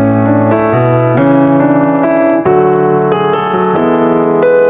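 Background piano music: a melody over held chords, with new notes struck about every half second.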